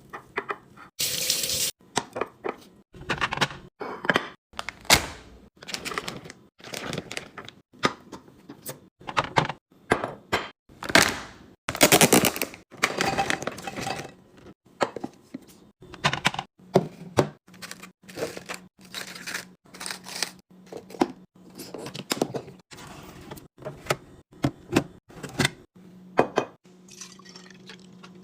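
Kitchen containers being handled while a fridge is stocked: a run of clicks, knocks and taps as jars, bottles and plastic boxes are set down and lids snapped on, with a couple of longer hissing stretches. A low steady hum comes in past the middle.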